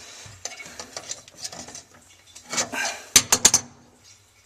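Metal parts of a broken faucet handle clinking and scraping as it is turned, with a quick run of about four sharp clicks about three seconds in.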